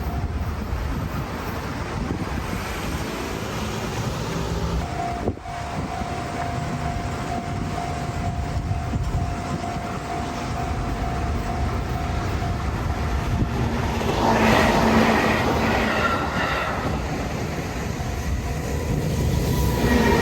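A train running past on the rails, getting louder for a couple of seconds about two-thirds of the way through.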